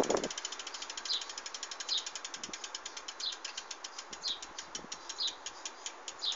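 Halo Combat singlespeed rear hub freewheeling as the hand-spun wheel coasts down: a fast ratchet of pawl clicks that gradually slows. A slightly louder chirp comes about once a second, once per turn of the wheel.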